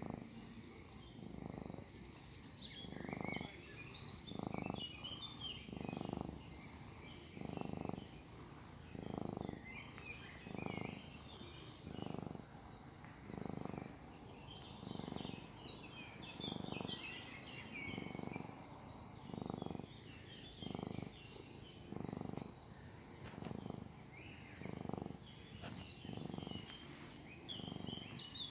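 Tabby cat purring close to the microphone while being stroked, the purr swelling with each breath about every second and a half. Small birds chirp in the background.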